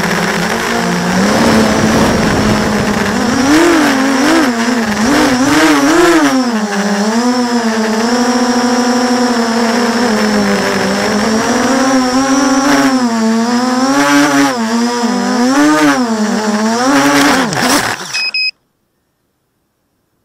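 6-inch FPV quadcopter's brushless motors and propellers whining, the pitch rising and falling again and again with the throttle. The sound cuts off suddenly about eighteen seconds in.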